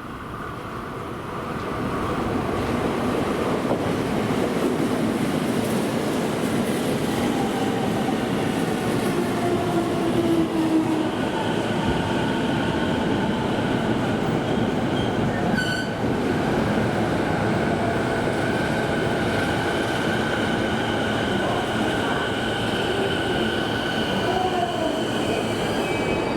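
Toei Shinjuku Line subway train running at the platform: a steady rumble of wheels and motors that swells over the first two seconds, with gliding motor tones and high steady squealing tones from about the middle on.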